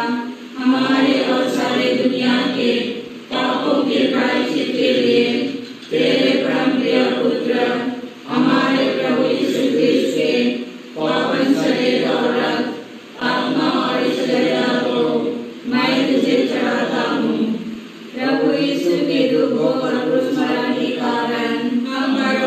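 A congregation chanting a prayer together in unison, in a run of short phrases of about two to three seconds each with brief breaks between them.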